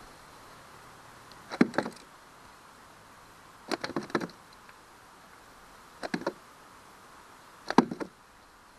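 A landed shad flopping on a plastic kayak deck: four quick clusters of slaps and knocks, about two seconds apart.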